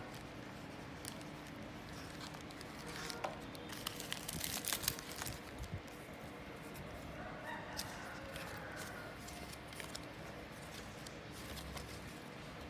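Faint handling noises, crinkling and a cluster of light clicks a few seconds in, over a steady low hum.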